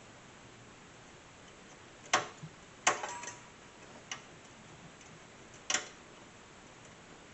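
Four sharp metallic clicks and clinks from small parts, such as screws and a hard drive, being handled against the steel chassis of a desktop PC while drives are fitted. The second clink is followed by a brief rattle.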